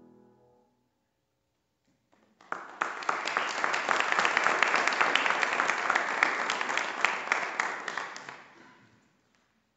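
The last piano chord dies away, and after about two seconds of quiet an audience breaks into applause that stays steady for several seconds and then fades out.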